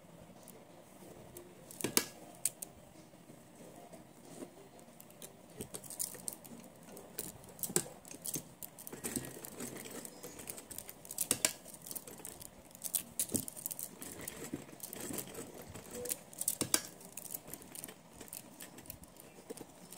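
Irregular sharp clicks and light clinking as hands handle a fabric piece at a Jyoti sewing machine, setting it under the presser foot. The loudest click comes about two seconds in, with more clusters of clicks in the middle and second half and no steady machine run.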